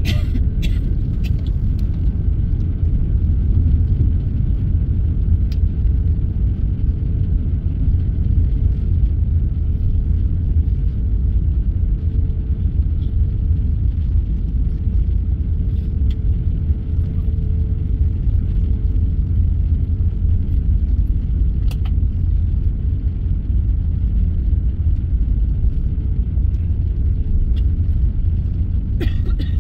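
Cabin noise of an Airbus A350-900 taxiing: a steady low rumble from its Rolls-Royce Trent XWB engines at idle and its wheels rolling, with a faint steady hum over it.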